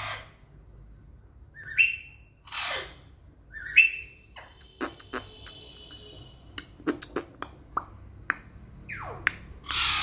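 Alexandrine parakeet giving two short, sharp falling chirps about two seconds apart, then a thin steady whistle lasting about a second. A run of light, irregular taps follows as its beak knocks on the surface it is perched on.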